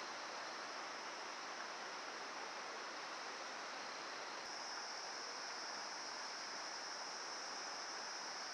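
Steady outdoor background noise: an even hiss with a steady high-pitched whine in it, which grows a little stronger about halfway through.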